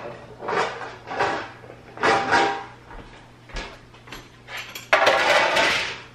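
A metal sheet pan with a wire rack being handled and set down on a granite counter. A series of short clatters and scrapes, the longest and loudest near the end as the pan lands.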